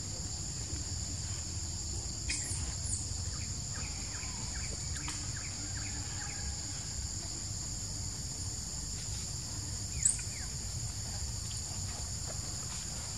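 Steady high-pitched insect chorus, over a low rumble, with a few faint short chirps and one brief, sharp, high chirp about ten seconds in.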